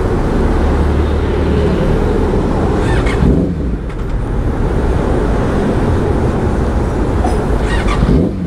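Motorcycle engine running on the road under steady wind and road noise, its pitch rising twice, about three seconds in and near the end, each rise followed by a short dip in level.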